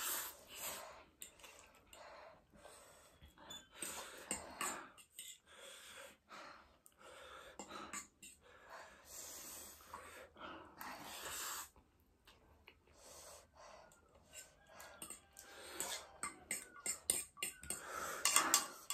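People eating very spicy ramen: short, irregular breaths drawn in and out through the mouth, with cutlery clinking on bowls, the clinks coming thicker near the end.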